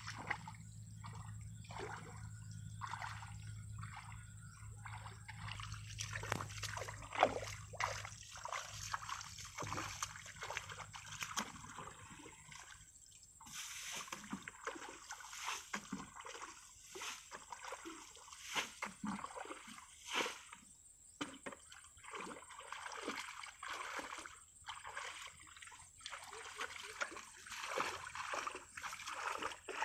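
Irregular splashing and sloshing of shallow muddy water, as water is thrown out of the pool with a plastic bucket and hands work through the mud.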